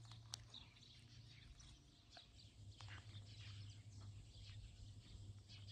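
Near silence: faint outdoor background with a low steady hum and a few faint short sounds scattered through it.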